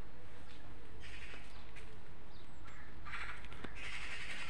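Birds calling: one call about a second in, then two longer calls near the end, over steady low background noise.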